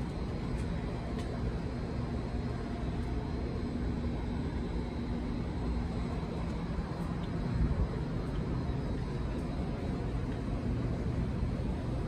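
Steady low rumble of distant street traffic, with a faint engine hum through the first half.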